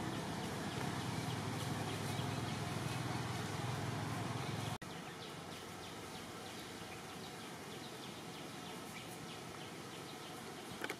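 Outdoor background noise: a steady low rumble under a hiss stops abruptly about five seconds in at an edit. After that a quieter hiss remains, with faint rapid high ticks.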